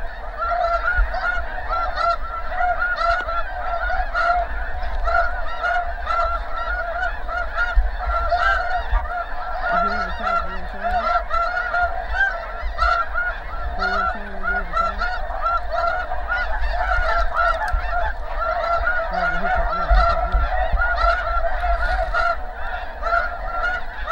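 A large flock of snow geese calling continuously, a dense chorus of many overlapping short honks.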